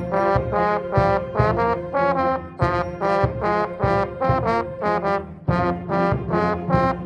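Band playing with trombones prominent: a run of short accented brass notes, about three a second, over a note held for about the first five seconds.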